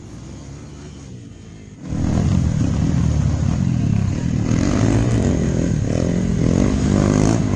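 Motorcycle engine on an off-road track, a low quiet hum at first, then suddenly loud about two seconds in and revving up and down with the throttle.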